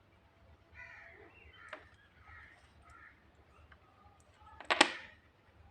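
Faint bird calls in the background through the first few seconds, then a sharp clack near the end, the loudest sound, from handling the charger lead and plug parts by hand.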